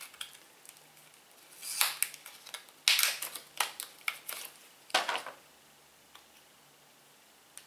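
Clear plastic pouch being opened by hand: several short bursts of crinkling and rustling in the first five seconds, then quiet.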